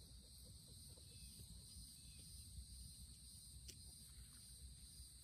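Faint steady high-pitched insect chorus over a low rumble, with a couple of small clicks.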